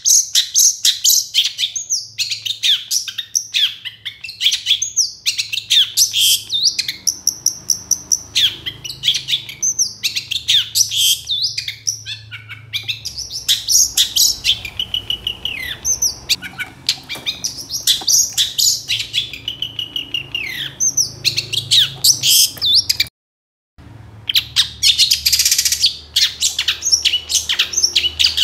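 Long-tailed shrike (cendet) singing actively: a fast, nearly unbroken string of varied chattering notes and short whistles, with a brief break about five seconds before the end.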